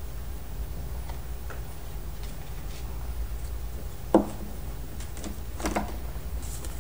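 A few light clicks and taps of plastic Play-Doh tools being handled on a tabletop, with one sharper knock about four seconds in, over a steady low hum.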